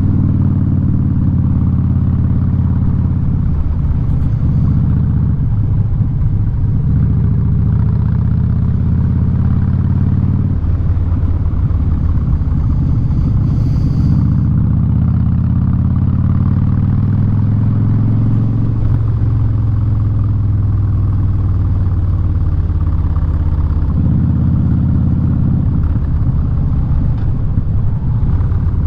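Harley-Davidson Street Bob V-twin running loud through a Vance & Hines aftermarket exhaust while being ridden. The engine note shifts in pitch several times as the throttle and gears change.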